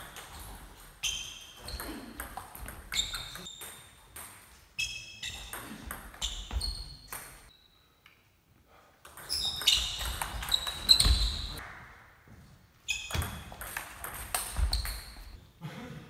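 Table tennis rallies: the celluloid/plastic ball clicking sharply off rubber-covered rackets and the table top, each hit with a short high ping, in quick exchanges broken by a brief quiet pause between points about halfway through, with a few low thumps among the later hits.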